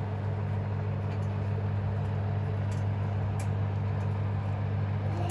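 Electric oven running: a steady low hum with a faint, regular pulsing.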